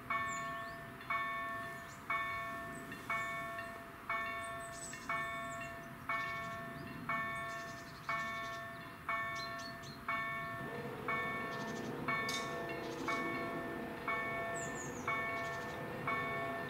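Polish level-crossing electronic warning bell striking about once a second, each strike a bell-like chime that fades away: the warning that a train is coming and the barriers are about to close. About ten seconds in, a lower steady hum joins it as the JEGD-50 barrier drives start lowering the booms.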